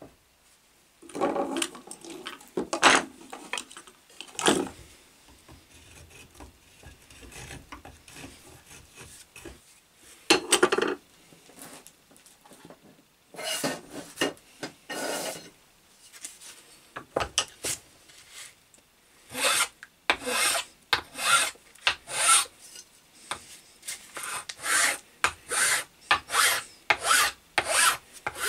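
A flat hand file shaping a hickory axe handle held in a vice, with rasping push strokes on the wood. There are a few scattered strokes with pauses at first, then from about two-thirds of the way through a steady run of strokes, about one every half second.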